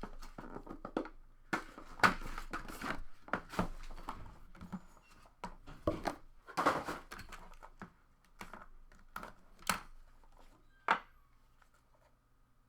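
Packaging being torn open and crinkled by hand as a sealed trading-card box is unwrapped: irregular tearing and rustling for most of the time, then quieter with a few sharp snaps near the end.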